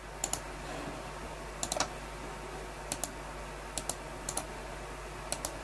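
Sharp clicks of computer keys and mouse buttons, mostly in close pairs, scattered about a second apart over a faint steady low hum.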